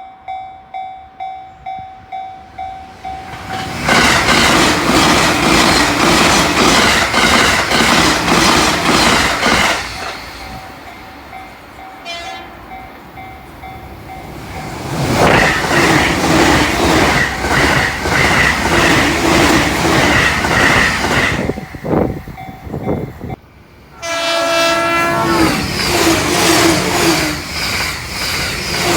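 Level crossing warning bell ringing in a steady repeating tone, then a Joban Line train passing at over 120 km/h with a loud rush and rapid clatter of wheels over rail joints. A second high-speed train passes about fifteen seconds in. Near the end a train horn sounds as another train rushes past.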